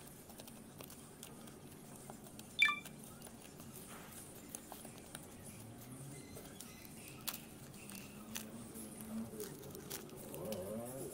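Small hand trowel digging and scraping in dry, stony garden soil: faint crunches and scattered scrapes, with one sharp click about two and a half seconds in.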